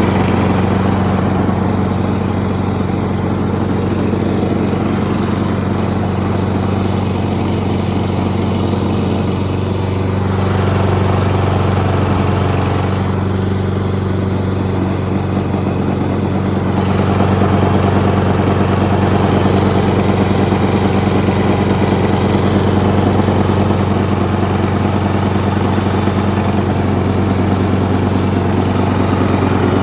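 Stihl RM 453 V petrol lawn mower running with the engine steady, the machine shaking and the deck giving off a wobbling sound, a vibration fault. It gets a little louder about seventeen seconds in.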